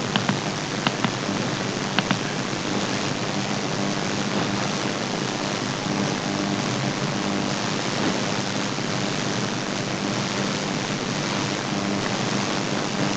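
Steady whirring noise of a computer cooling fan with a faint hum, and a few sharp mouse clicks in the first two seconds.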